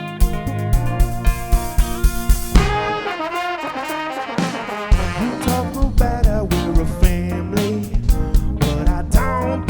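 Live soul band playing an instrumental passage. About two and a half seconds in, the horns, saxophone and trombone, take up a melodic line while the drums and bass drop back. The full band with drum kit comes back in about five seconds in.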